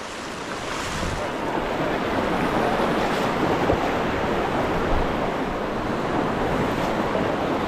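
Rushing river water: a steady, even rush that swells over the first second and then holds.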